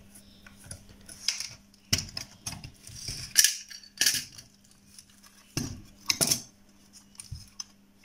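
Scattered metallic clicks and clinks of a small precision screwdriver, loose screws and a power supply's perforated sheet-metal case being handled as the unit is taken apart.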